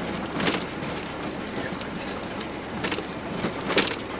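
GAZelle van driving slowly over a rough, broken road, heard from inside the cab: steady road and engine noise, with a few sharp rattles or knocks, about half a second in, near three seconds and just before the end.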